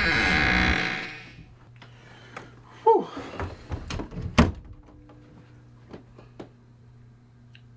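Music fades out in the first second, then a few knocks and thuds from things being handled on a wooden dresser, with a short squeak about three seconds in, over a faint steady room hum.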